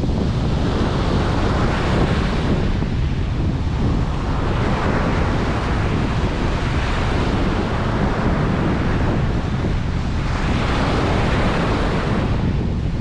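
Ocean surf breaking and washing up a beach, swelling in about three waves of hiss, over a steady low rumble of wind on the microphone.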